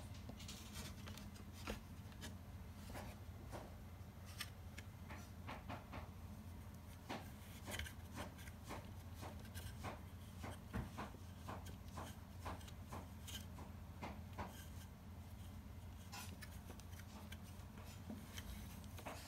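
Quiet steady low room hum with many small scattered clicks and rubbing noises, coming close together at times, with a few louder ticks.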